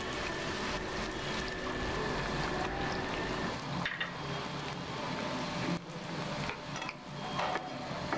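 Mixed vegetables sizzling in hot olive oil in a nonstick frying pan while a wooden spatula stirs them, with a few light spatula knocks against the pan.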